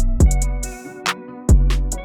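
Background music with a steady electronic beat: heavy kick drum, crisp hi-hats and a bass line.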